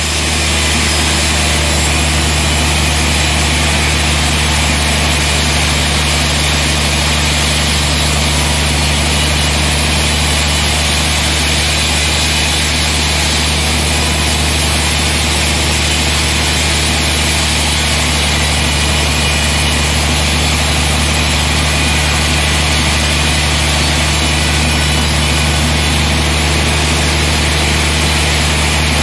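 Large band sawmill running while its blade cuts lengthwise through a big trembesi (rain tree) log: an even, unchanging low hum with a steady hiss over it.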